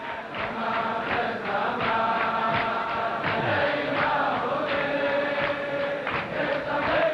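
A large group of men singing a Chasidic melody (niggun) together in unison, holding long notes.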